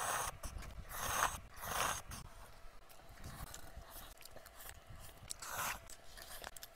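Person slurping instant kimchi ramen noodles: a few loud sucking slurps in the first two seconds and another one near the end, with chewing and small utensil clicks between.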